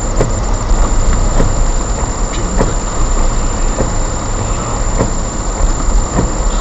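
Car cabin noise while driving on a wet road: a steady rumble of engine and tyres, with faint clicks about once a second.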